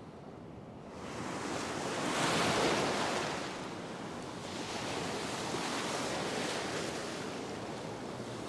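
Ocean surf breaking and washing up the shallows of a sandy beach, quiet at first and then swelling to a loud wash about two seconds in before settling to a steady rush.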